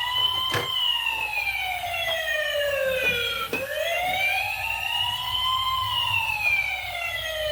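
Electronic siren in a slow wail, its pitch falling, rising and falling again over the few seconds, with a brief click about half a second in.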